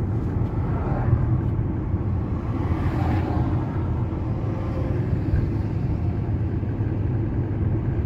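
Steady road and engine rumble heard inside the cabin of a moving car at road speed, with a brief swell of higher noise about three seconds in.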